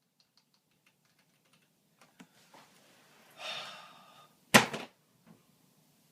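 Faint scattered tapping clicks, a short rustling noise, then a single loud, sharp thump with a brief ring about four and a half seconds in.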